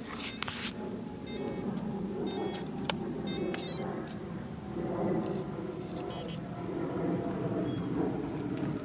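Electric powerchair drive motors running, a steady hum that swells and eases as the chair moves, with a few short high chirps and clicks.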